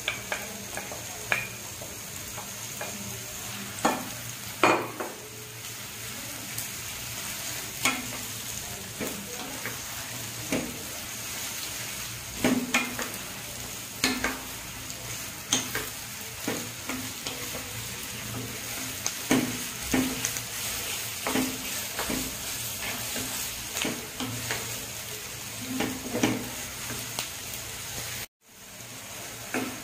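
Marinated pounded beef and sliced onions sizzling steadily in hot oil in a frying pan, stirred with a wooden spatula that scrapes and knocks against the pan every second or so. The sound cuts out for a moment near the end.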